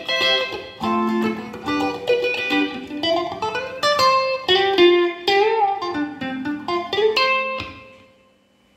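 Guitar playing a simple single-note solo pattern in the D shape over the chord progression, several picked notes a second with a bent or slid note about five seconds in. The last notes ring and fade out near the end.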